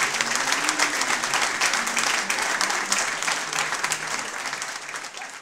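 Concert audience applauding, a dense, steady clatter of clapping that fades out near the end.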